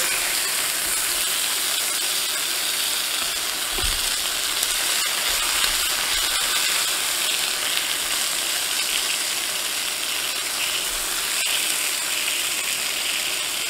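Strip steaks sizzling steadily in clarified butter in a cast iron skillet as their edges are seared, with a few light clicks of metal tongs.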